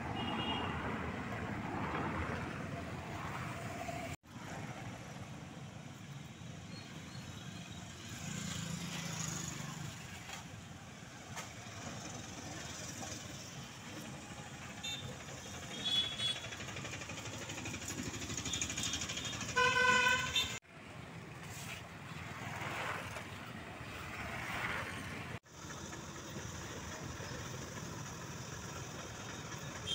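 Roadside traffic noise with vehicle horns tooting now and then; the loudest is a horn blast about two-thirds of the way through.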